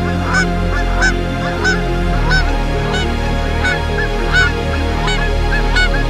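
A flock of birds calling over and over, short calls that rise and fall in pitch, about two a second, over a steady low drone of background music.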